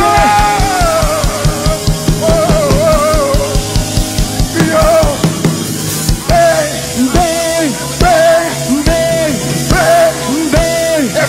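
Live church band music: drums keep a fast beat that thins to about two hits a second halfway through, under a wavering, held melody line.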